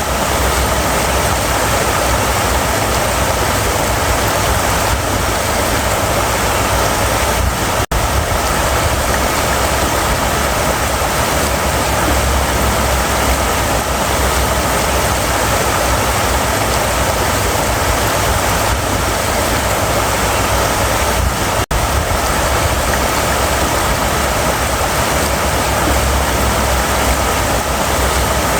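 River water rushing steadily, an even wash of noise with a deep low rumble, briefly cutting out twice.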